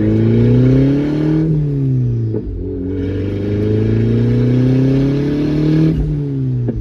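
Car engine accelerating hard through the gears, its pitch climbing steadily. About a second and a half in, the pitch drops at a gear change and there is a brief lull, then it climbs again. It drops at a second shift near the end.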